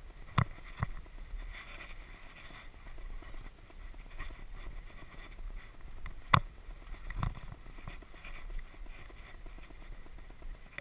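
Trek Rail 9.8 electric mountain bike riding over a rough dirt trail: a steady rumble of tyres and wind with sharp knocks and rattles as the bike hits bumps. Two knocks come within the first second, and the loudest comes about six seconds in.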